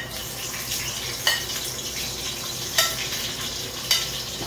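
Chopped onion and greens sizzling as they are spooned into a hot aluminium pot on a gas stove, a steady hiss. A metal spoon clinks sharply four times, about a second apart.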